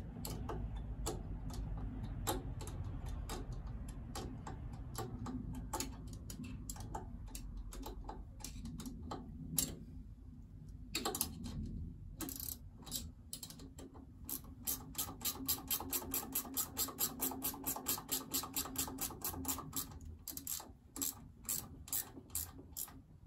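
Ratchet wrench clicking as a supercharger mounting bolt is tightened: scattered clicks in short strokes at first, then a fast, even run of about four or five clicks a second in the second half.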